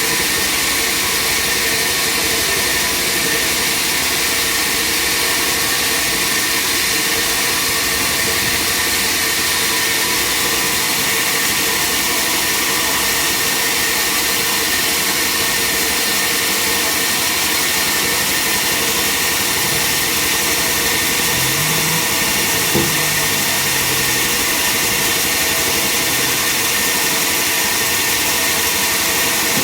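Sawmill machinery running steadily, a constant loud mechanical noise with a strong high hiss. A single brief knock comes about three-quarters of the way through.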